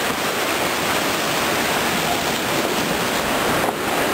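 Whitewater rapids rushing around a cataraft as it runs through them: a loud, steady wash of churning water.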